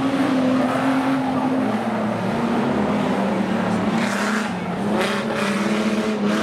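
Several speedway stockcar engines running hard on a dirt track, the engine note easing off and then rising again, with bursts of broad noise about four and five seconds in.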